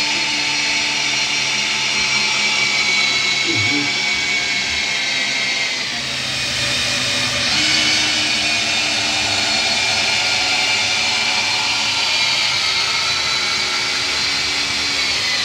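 Cordless drill-driver whining steadily as it drives screws up through timber battens into the ceiling joists. It cuts off abruptly at the end.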